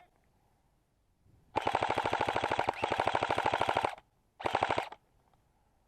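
Airsoft gun firing full-auto in rapid, evenly spaced shots: a long burst of about two seconds, then a short burst of about half a second.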